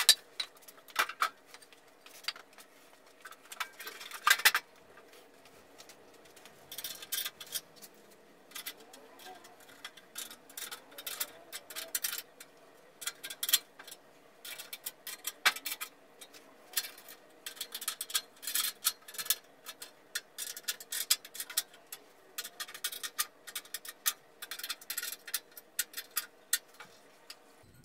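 Irregular metallic clicks and clinks of bolts, washers and a hand tool as steel stand legs are bolted onto a Lumberjack BS254 bandsaw, over a faint steady hum.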